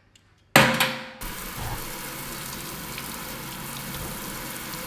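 Kitchen tap water running into a stainless steel sink as a ring is rinsed under the stream: it starts with a sudden loud burst about half a second in, then runs steadily.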